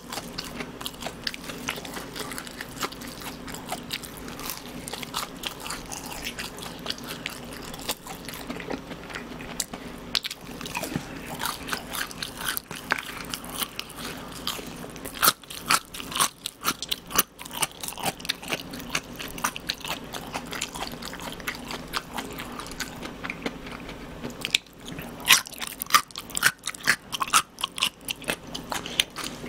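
Close-miked crunching and chewing of crispy fried food, fried chicken and french fries, with sharp crackly bites, thickest about halfway through and again near the end.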